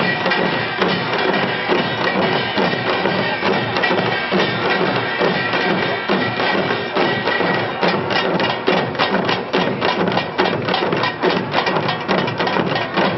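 An ensemble of janggu, Korean hourglass drums, playing together in a dense, driving rhythm. About eight seconds in, the strokes become sharper and more distinct, in a quick even pulse.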